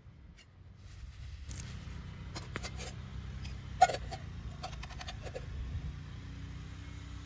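Large wood bonfire burning: a low rumble that swells from about a second in, with scattered crackles and snaps, one sharp, loud pop about four seconds in.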